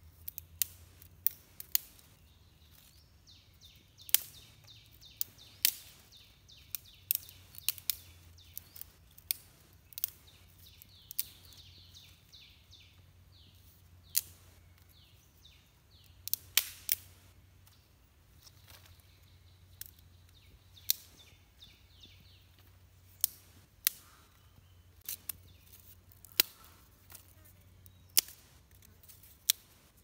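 Dry twigs snapping and clicking sharply, one crack after another, as thin sticks are broken and stacked for a campfire. Behind them, runs of quick, high, repeated chirps come and go.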